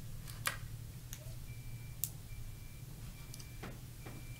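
Meeting-room background through the sound system: a steady low hum, a few sharp clicks, and a faint high thin tone that comes and goes in the second half.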